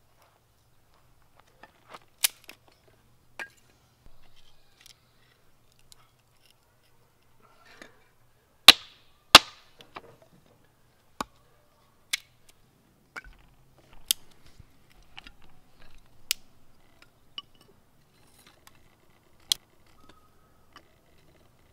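Scattered sharp wooden cracks and knocks, about nine loud ones with the two loudest close together near the middle, and quieter scraping and rustling between them: a fixed-blade knife splitting and shaving kindling sticks from a small round log.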